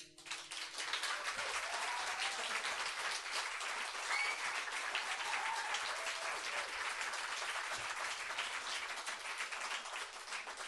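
Applause from a small seated audience, a steady patter of many hands clapping at the end of a song.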